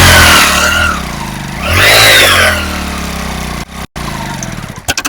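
A vehicle engine revved twice, each rev climbing and falling back, settling to a steady idle between and after; the sound cuts out for an instant about four seconds in.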